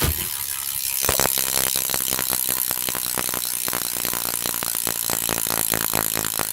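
BMX rear cassette hub freewheeling, its pawls clicking in a fast, even ratchet as the rear wheel spins. It starts with a knock and builds to a steady buzzing click about a second in.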